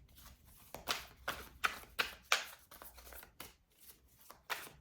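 Tarot cards being shuffled by hand: a run of short papery swishes, two or three a second, with a brief lull past the middle.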